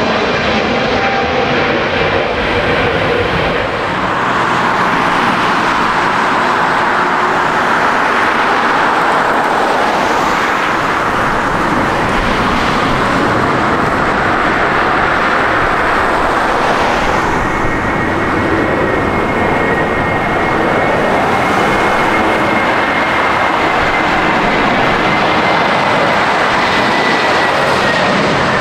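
Jet airliner engines, a loud steady rush of engine noise. A thin whine comes in about two-thirds of the way through and slowly falls in pitch as the aircraft moves past.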